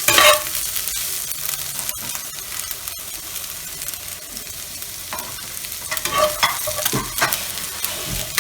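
Onions and chopped tandoori chicken sizzling in oil in a frying pan, with a spatula stirring and scraping the pan a few times in the second half.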